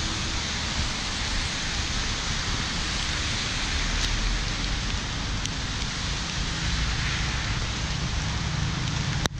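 Steady rain falling on wet paving and foliage, an even hiss, with wind buffeting the microphone as a low rumble underneath.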